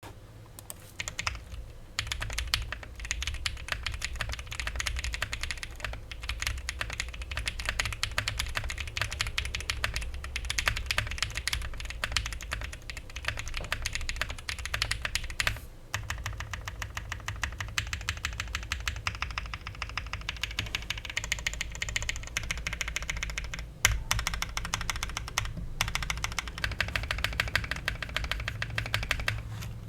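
Typing on a gasket-mount custom mechanical keyboard with lubed Corsa tactile switches on a polycarbonate plate and GMK keycaps: a fast, steady stream of keystrokes with brief pauses, and a stabilized long key such as the spacebar now and then. A low steady hum lies beneath.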